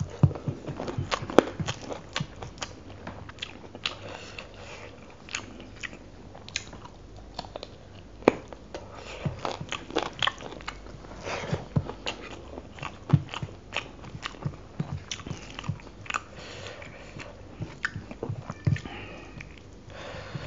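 Close-miked eating of rice and chicken curry by hand: chewing and wet mouth sounds with many sharp, irregular clicks, along with the fingers mixing the rice and curry on a steel plate.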